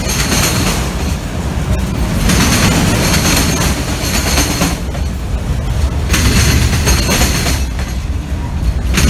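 Freight train rolling past: a steady low rumble with a hiss of wheel-on-rail noise that rises and falls every second or two.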